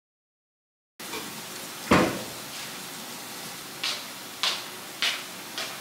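Dead silence for the first second, then a single loud thud about two seconds in. After it, light, sharp footsteps on a hard wood floor follow at about one every half second.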